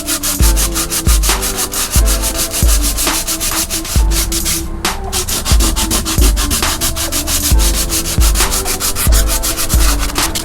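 Background music: an electronic track with deep bass notes landing in pairs, a stepping synth melody, and quick, even hi-hat ticks.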